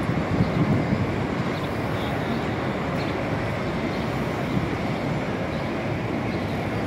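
Steady city street noise: traffic running on a busy downtown road, an even low rumble with no single event standing out.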